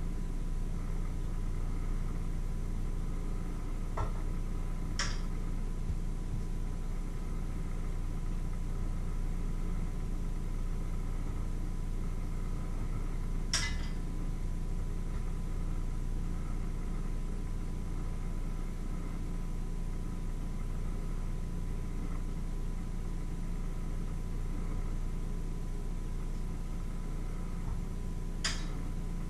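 A steady low hum, with four sharp light clinks of a utensil against a bowl spread through it.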